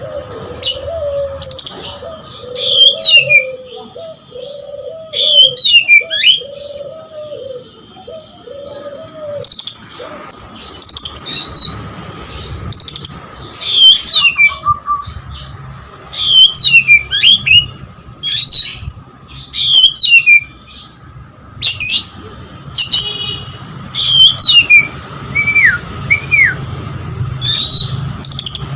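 Oriental magpie-robin (kacer) in full, persistent song: loud, fast whistled phrases that sweep up and down, delivered in bursts every second or two. The bird has been tutored on lovebird song, so lovebird-like notes are woven into its phrases.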